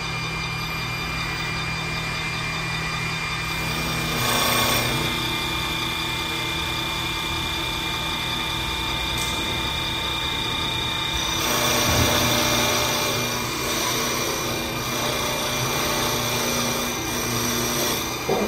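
Automatic CNC wood lathe running, its spindle turning a wooden workpiece while the cutter shaves it. A steady machine whine whose tones shift about four seconds in and again near twelve seconds, each shift with a brief louder swell.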